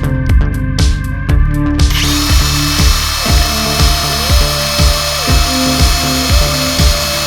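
Electronic background music with a steady beat of about two thumps a second and rising synth glides. From about two seconds in, a steady high hissing whir runs under the music.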